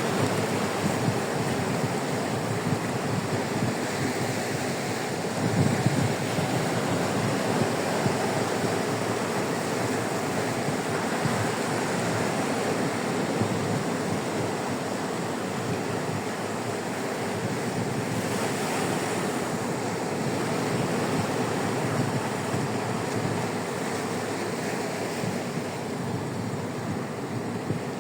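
Sea waves breaking and washing up a sandy beach, a steady wash of surf, with wind buffeting the microphone and a stronger gust about five or six seconds in.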